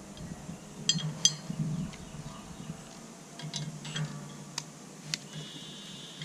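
Scattered light metallic clicks and taps from handling the gate latch and its self-tapping screws against the pipe gate, over a faint steady low hum.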